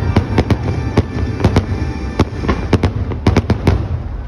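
Fireworks shells bursting in rapid, irregular bangs, several a second, over a steady low rumble.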